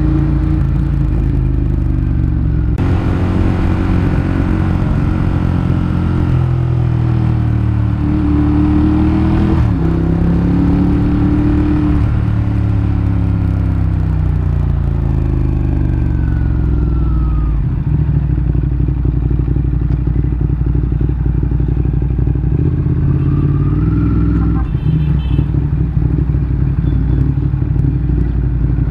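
Ducati motorcycle engine running under way, its pitch rising and falling as it accelerates, shifts gear and slows, with a sudden change about 3, 10 and 18 seconds in.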